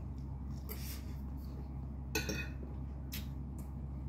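Eating noises: a few short clinks of a metal fork and spoon against a plate, the loudest about two seconds in, with chewing and slurping of noodles, over a steady low hum.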